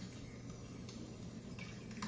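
Faint trickle of coconut oil poured in a thin stream into a large metal cooking pot, over a steady low hum.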